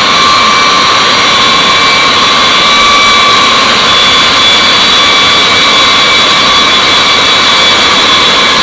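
Boeing B-52H Stratofortress's eight TF33 turbofan engines at taxi power as the bomber rolls past: a loud, steady jet roar with high turbine whines held at steady pitches on top.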